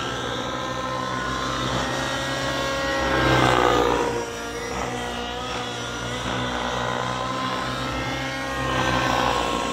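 Two 700-size radio-controlled helicopters, an Align T-Rex 700 Nitro and a Gaui X7, flying together. Their engine and rotor whine shifts up and down in pitch as they manoeuvre, swelling louder about three seconds in and again near the end.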